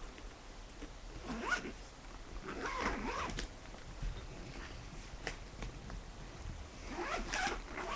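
A zipper pulled open in a few short, separate pulls.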